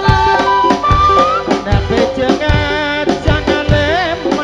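Live dangdut band music, with regular drum strokes under a high, wavering melody line.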